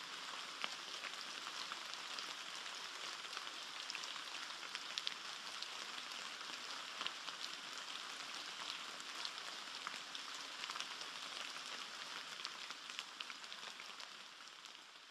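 Rain pattering on forest foliage: a steady dense hiss scattered with many small sharp drop ticks, fading away near the end.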